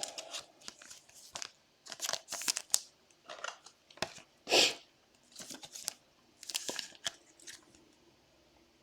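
Trading cards and their plastic and foil packaging being handled, crinkling and rustling in short irregular bursts, with one louder rustle about halfway through.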